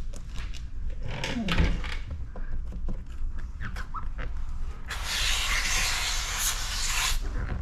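A sprayer misting liquid onto paint protection film as it is laid on a car bumper: a steady hiss of about two seconds that starts and stops sharply, after a few quiet ticks of hands handling the film.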